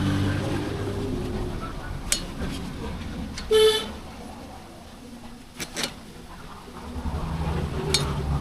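A vehicle horn gives one short toot about three and a half seconds in, over a low rumble of passing road traffic that fades and then swells again near the end. A few sharp clicks of handling tools or parts are also heard.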